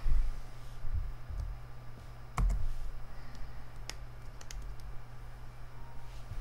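A few separate sharp clicks of computer keys, the loudest about two and a half seconds in, over a steady low hum.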